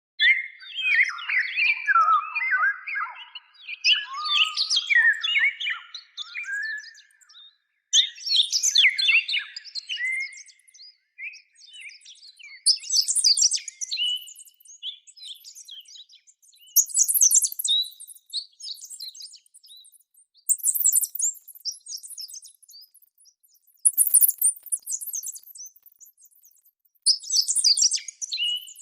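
Songbird singing: a phrase of quick twittering chirps every three to four seconds, the early phrases lower and the later ones much higher-pitched.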